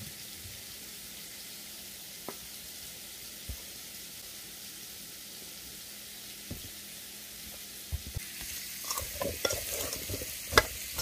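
Shrimp sizzling steadily in an electric skillet, with a few light knocks. From about eight seconds in, gloved hands toss seasoned potato chunks in a stainless steel bowl: wet rustling and clattering, with one sharp knock against the bowl near the end.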